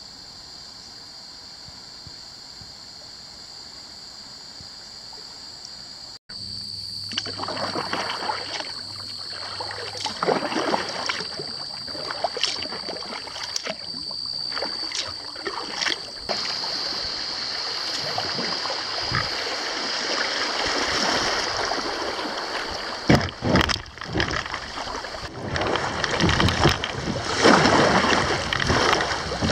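A faint steady hiss, then from about six seconds in a kayak paddle dipping and splashing in the river stroke after stroke, with a steady high-pitched buzz behind. Near the end the water turns choppy through a riffle and the splashing grows louder.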